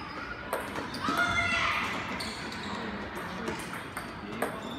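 Celluloid table tennis ball clicking off paddles and the table in a few scattered sharp hits, over background voices in a large hall. A short high-pitched sound about a second in is the loudest part.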